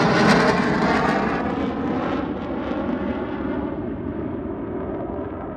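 Boeing F/A-18 Super Hornet jets going past loud and then fading, the high hiss dying away first as they recede.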